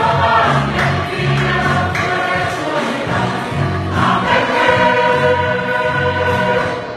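Choir singing in harmony over a low pulse about twice a second. From about four seconds in it holds a long final chord, which stops shortly before the end.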